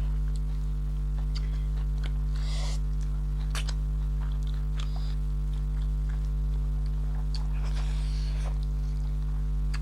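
Steady low electrical mains hum throughout, with faint chewing, bites and small clicks of eating scattered over it.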